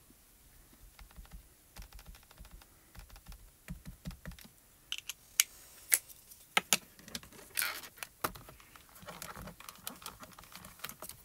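Mini ink cube handled and dabbed onto clear photopolymer stamps: light, irregular taps and clicks, a few of them sharper.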